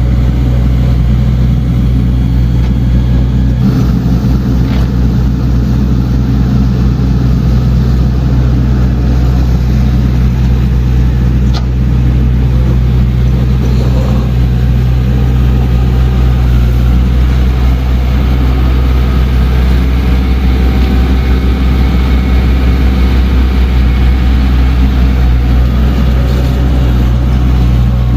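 Diesel engine of heavy earthmoving equipment, an excavator or bulldozer, running steadily at work with a low, constant drone.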